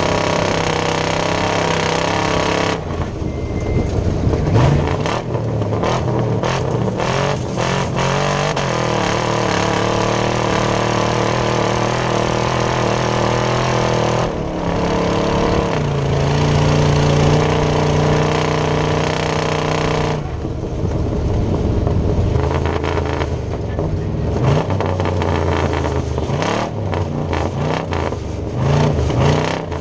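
Chevrolet S10-based off-road race truck engine running hard under changing throttle, its pitch stepping up and down several times. Stretches of repeated sharp knocks and clatter run through it, like the truck banging over rough ground.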